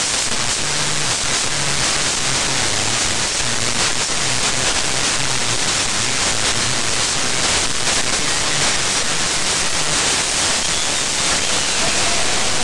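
Radio static from an RTL-SDR receiver tuned to a satellite pass in the 2 m band: a steady loud hiss with faint low tones coming and going under it, the satellite signal starting to show in the static but not decipherable.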